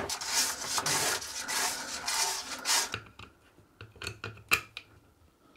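Sandpaper rubbed back and forth by hand, lightly abrading the bilge floor, for about three seconds. Then a few light clicks and taps.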